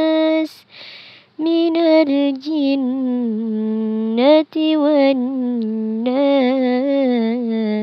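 Quran recitation: a single voice chanting in long, melodic held and ornamented notes, with a breath taken about half a second in.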